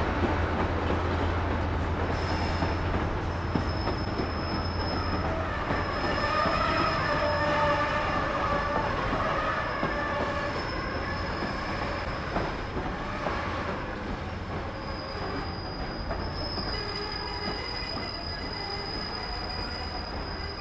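A freight train's container flat wagons rolling past, wheels rumbling and clattering on the rails. A high, thin wheel squeal comes and goes and holds longer near the end. The sound slowly fades in the second half.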